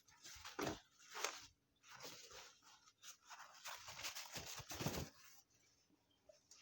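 Faint scuffs and rustles of a boxed action figure's cardboard-and-plastic packaging being handled and disinfected, in several short noisy bursts, the longest about three seconds in.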